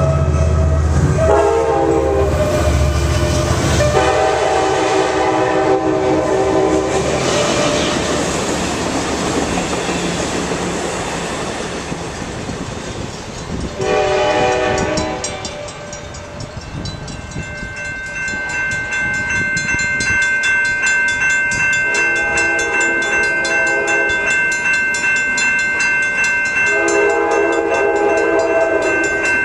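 A passenger train's multi-note air horn sounds a series of long blasts for a grade crossing as a Pacific Surfliner approaches, then the rumble of the train passing, and one more horn blast. After that, grade-crossing warning bells ring steadily while an approaching train sounds two more long horn blasts.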